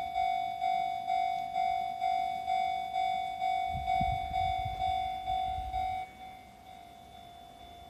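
Japanese level-crossing warning bell ringing, an electronic ding repeating about twice a second, with a low rumble under it from about four seconds in. About six seconds in the loud ringing cuts off and a much fainter ringing carries on.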